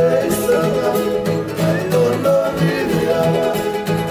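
Two acoustic guitars strummed in a steady rhythm with men singing a Fijian song together.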